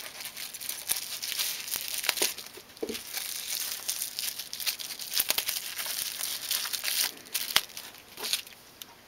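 Plastic bubble wrap crinkling and tearing as it is cut and peeled off small pen-kit parts by hand, with many sharp crackles. It dies down near the end.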